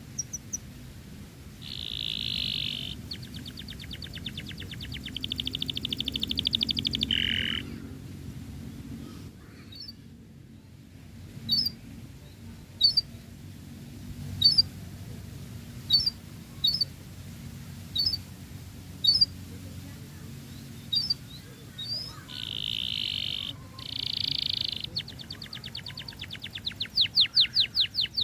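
Domestic canary singing: dense buzzing notes and fast rolling trills, then a run of single sharp chirps about once a second, then more trills that grow louder near the end.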